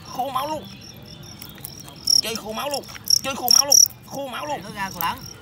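Fighting crickets chirping in short repeated bursts of a high, thin song during a bout, loudest about midway and again near the end.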